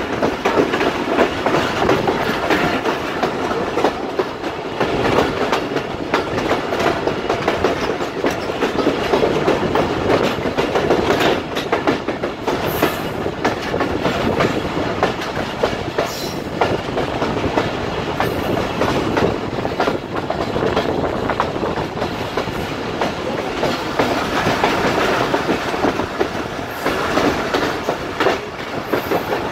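Awami Express passenger train running along the line, its wheels clicking over the rail joints over a steady rumble from the moving coaches.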